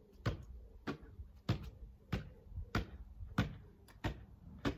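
Goalkeeper-gloved hands slapping a football as it is passed quickly from hand to hand around the legs. There are eight sharp slaps at an even beat, about three every two seconds.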